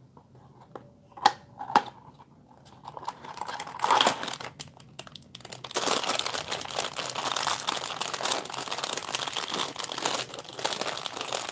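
A small cardboard toy box handled and opened, with two sharp snaps a little over a second in and a short rustle around four seconds, then a clear plastic bag of small building bricks crinkling steadily in the hands for the second half.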